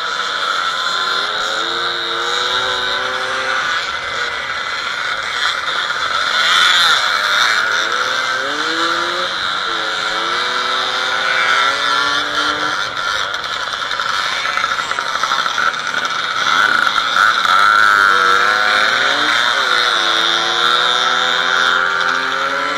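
Several small classic off-road motorcycles with Fichtel & Sachs two-stroke engines running close together, revs rising and falling over and over as the riders work the throttles around the course.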